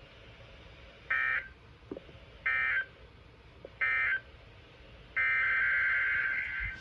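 NOAA Weather Radio SAME digital data tones: three short, high-pitched bursts about a second and a half apart, the end-of-message code that closes the weekly test. About five seconds in, a longer burst of the same data tones begins, the start of the next message's header.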